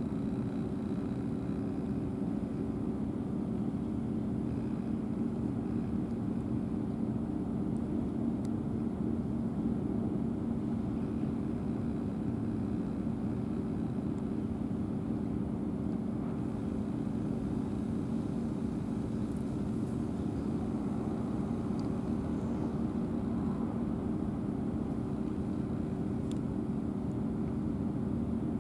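A steady low mechanical drone with a few held pitches, an engine running at a constant speed, unchanging throughout, with a couple of faint ticks.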